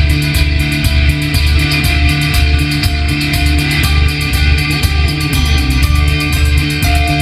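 Loud rock music with electric guitar over a fast, steady drum beat and pulsing bass.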